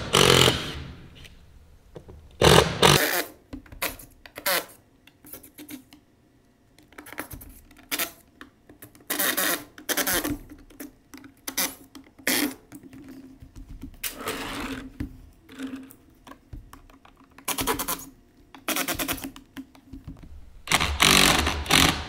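Cordless drill driver backing screws out of masonite stage-floor sheets, its motor running in many short bursts with clicks and rattles between them. The loudest bursts come at the start, about two and a half seconds in, and near the end.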